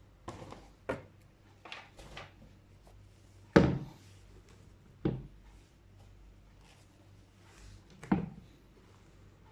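A shoebox and running shoes being handled: a run of separate knocks and thuds, the loudest about three and a half seconds in, with softer rustling between them.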